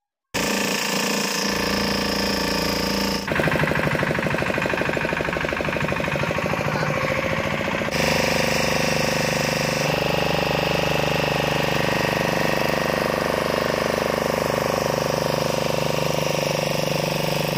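Motorboat engine running steadily with a fast pulsing beat, its tone shifting abruptly about three and eight seconds in.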